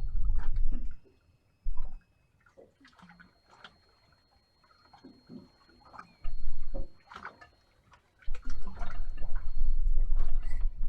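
Water lapping and splashing against the hull of a drifting boat, in scattered small slaps, with gusts of wind buffeting the microphone in low rumbles at the start, briefly past the middle and again near the end.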